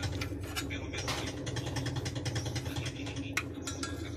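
Steady hum of the electric blower feeding air into a used-oil burner stove, running on low, with many irregular crackles and clicks over it.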